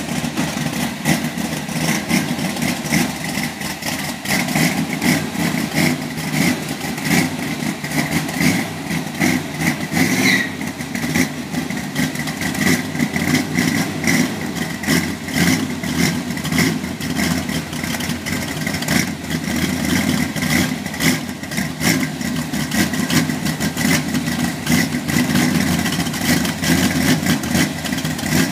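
1970 Chevrolet Corvette's 454 big-block V8 running at idle with an uneven pulse while the car creeps backward out of the garage. A short high chirp sounds about ten seconds in.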